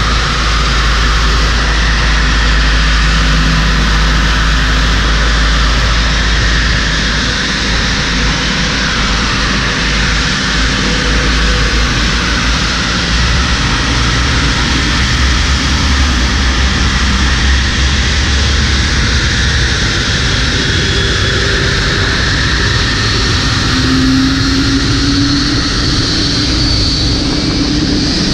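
Towbarless pushback tug running as it pushes a Boeing 787-9 Dreamliner back by its nose gear, mixed with the airliner's jet engine noise; a loud, steady rumble with a few faint whining tones that drift in pitch.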